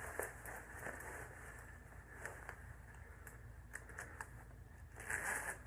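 Faint rustling of fabric and light clicks and taps as a tactical vest is handled and put on, a little louder near the end, over a steady low hum.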